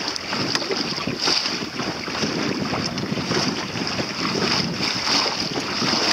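Wind buffeting the microphone over water splashing against the hull of a small sailboat under sail through a light chop. The noise is steady and unbroken, with no engine.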